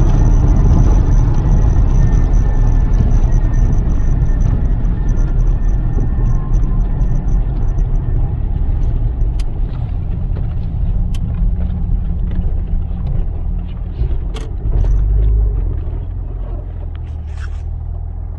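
Lotus Carlton's twin-turbo straight-six and tyres on the move, a heavy low rumble that gradually eases off. A faint high whine fades out partway through, and scattered clicks come in the second half.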